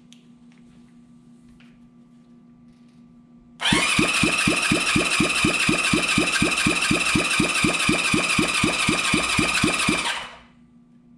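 Electric starter cranking a motorcycle engine over for a compression test. The engine turns over without running: a whirr with even chugs about five a second, starting a few seconds in and cutting off suddenly after about six seconds.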